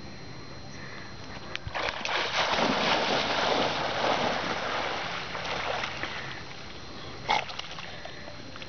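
A dog bounding and swimming through shallow water, splashing loudly for a few seconds starting about two seconds in, then dying down as it swims away. A single short knock about seven seconds in.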